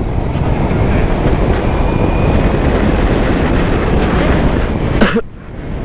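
Wind rushing over a helmet-mounted microphone on a moving BMW K1200GT motorcycle, with its engine and tyre noise underneath. About five seconds in there is a short sharp sound, and the noise drops away briefly.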